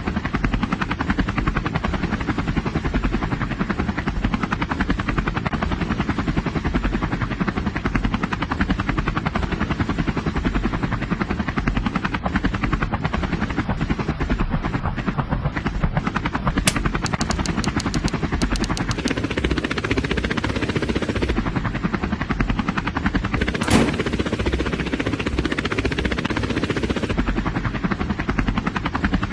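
Helicopter rotor chopping steadily, with a quick run of clicks about 17 seconds in and a single sharp crack around 24 seconds.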